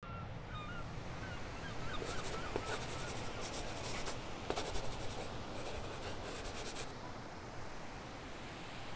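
Scratchy rustling in quick bursts for several seconds over a steady low outdoor rumble, with faint bird chirps in the first few seconds.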